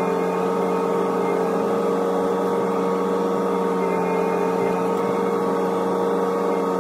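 Hitachi ZX125W wheeled excavator's diesel engine and hydraulics running steadily, heard from inside the cab as a constant hum with a few steady tones.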